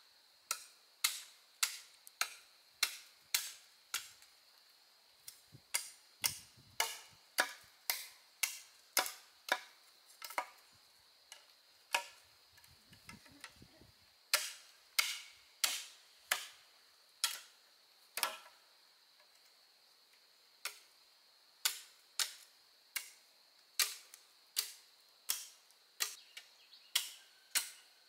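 A hand tool striking wood in runs of sharp blows, about two a second with short pauses between runs, over a faint steady insect hum.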